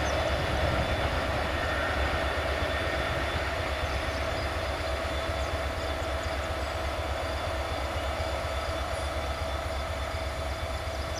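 The rear cars of a freight train rolling past and away on steel rails: a steady rumble of wheels on track with a thin, steady wheel squeal, slowly fading.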